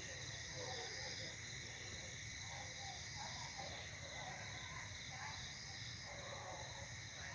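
Steady night chorus of crickets and other insects, several high continuous trills layered together, with faint distant murmuring voices now and then.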